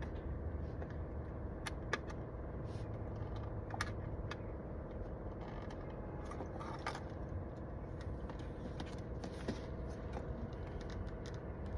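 Scattered small clicks and taps of plastic trim pieces and clips being worked loose by hand on a steering wheel, over a steady low hum.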